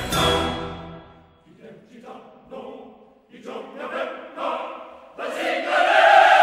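Background choral music. It fades about a second in, comes back in short, quieter phrases, then swells into a loud, held choral chord about five seconds in.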